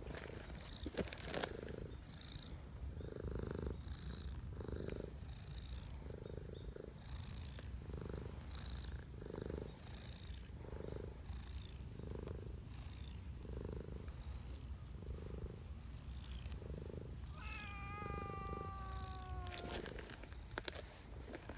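Tortoiseshell cat purring steadily while being stroked, the purr swelling with each breath about every second and a half. Near the end a cat gives one long meow that falls in pitch.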